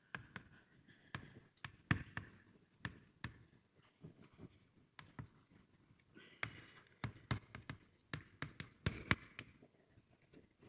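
Writing on a board: a run of irregular sharp taps, several to a second, with short scratchy strokes between them.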